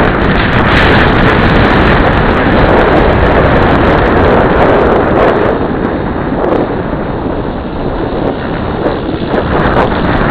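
Logo 600 electric RC helicopter in flight: a loud, steady rotor whoosh with wind buffeting the microphone, easing a little past the middle. A faint high squeal sits underneath, which the owner takes for a bad bearing and says worsens with collective pitch.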